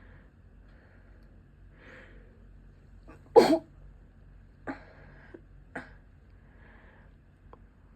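A person sneezing: a few faint breathy inhales, then one loud, sharp sneeze about three and a half seconds in, followed by two shorter, quieter bursts a second or so apart. It is part of a sneezing fit from an allergy-prone nose.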